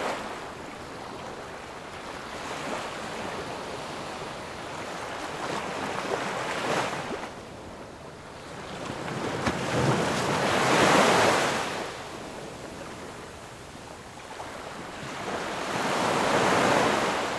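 Small ocean waves breaking and washing up a sandy beach, the surf swelling and fading several times, loudest about ten to eleven seconds in and again near the end.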